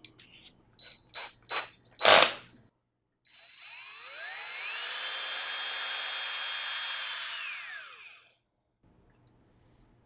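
A few sharp clicks as the cordless drill's chuck is tightened on the mechanical pencil. Then the drill spins up with a rising whine, runs steadily for a few seconds, and winds down, spinning the pencil clamped in its chuck.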